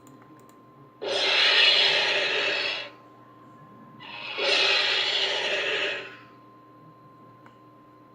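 Cassowary giving two long, raspy hiss-like calls, each about two seconds, with a pause of about a second between them.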